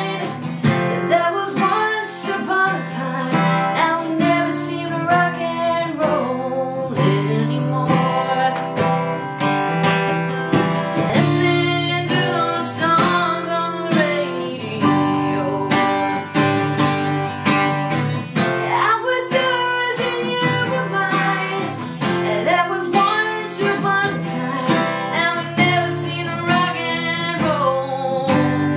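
Woman singing with her own strummed acoustic guitar accompaniment, a solo live performance of a pop ballad.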